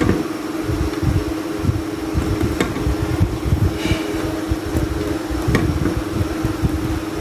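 Steady background hum at one pitch over a low rumble, of the kind a fan or air conditioner makes, with a few faint ticks.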